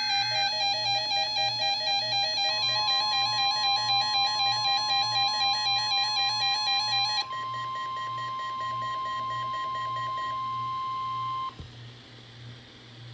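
NOAA Weather Radio 1050 Hz warning alarm tone: a steady single tone that starts a few seconds in and cuts off with a click near the end, as the weekly test of the alarm. It overlaps a warbling, rapidly pulsing electronic alarm beep that stops abruptly about seven seconds in.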